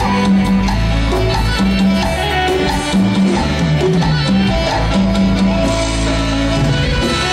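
Live band playing Latin dance music at full volume, with a steady, repeating bass line under the keyboards and guitars.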